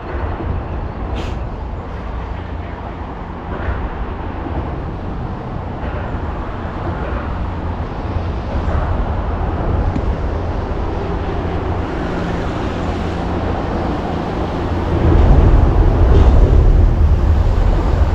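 Boat motor running steadily under way, a low rumble with a faint hum, growing louder about fifteen seconds in.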